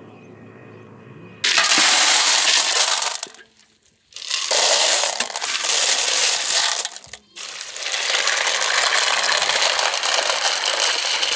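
Tiny freshwater snails (oomachi) poured from a clay pot onto a wide metal plate, their shells clattering in two long pours. About eight seconds in, water is poured over the heap and splashes steadily, setting the snails to soak so they purge their waste.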